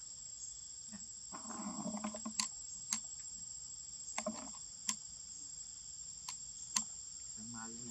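Steady high-pitched buzzing of an insect chorus, with a few sharp clicks now and then.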